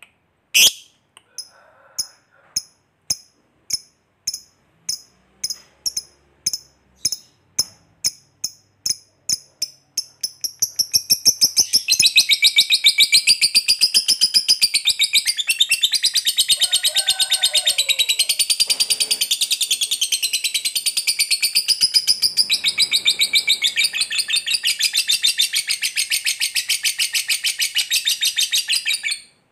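Fischer's lovebird chattering: single sharp high chirps, about one a second and coming faster and faster, run together into one long unbroken rapid trill, the lovebird's 'ngekek', which lasts about eighteen seconds and stops suddenly near the end.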